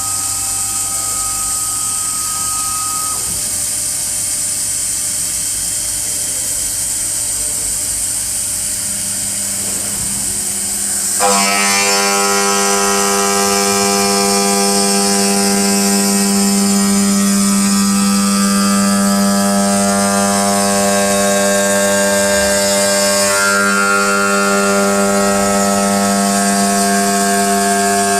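CNC stone cutting and polishing machine running with a steady mechanical hum and a high hiss. About eleven seconds in it gets louder and a chord of steady whining tones comes in, which holds to the end.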